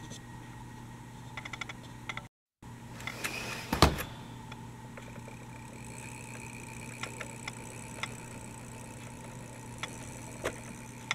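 A toy tram's small electric motor whirring with a steady high whine from about five seconds in, as the tram moves off. A single sharp knock comes just before.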